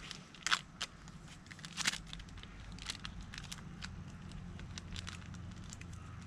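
Irregular crackles and clicks, with two louder snaps about half a second and two seconds in, over a faint low steady hum.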